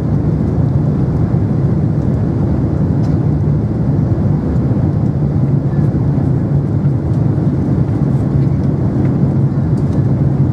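Steady low roar of a Boeing 767-300's cabin noise, jet engines and rushing air, as the airliner lands.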